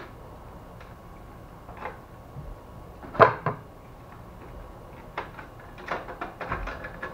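Scattered clicks and knocks of hands handling the opened laser printer's rear parts and the tools on the bench. A single loud knock comes about 3 s in, and a run of quick small clicks follows near the end.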